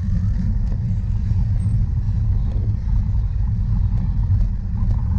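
Steady low rumble of wind buffeting the microphone of a camera carried along on a bicycle during a cyclocross race.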